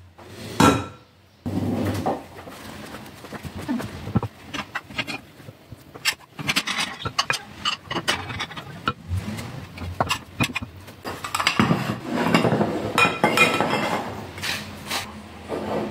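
A wooden spoon stirring and knocking against a glass mixing bowl of thick yogurt mixture, with irregular clinks of small porcelain dishes being set down on a wooden counter, busier in the second half.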